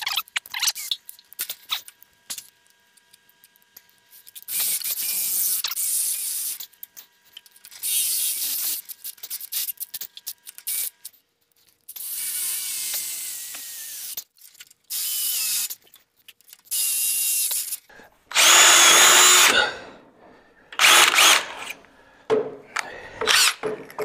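Cordless drill boring holes into the sawmill's steel upright, running in short bursts of one to two seconds with pauses between. The longest and loudest run comes about two-thirds of the way through.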